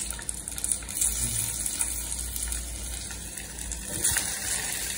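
Onions and freshly added tomato slices frying in hot oil in a large karahi, a steady sizzling hiss over a low, steady rumble.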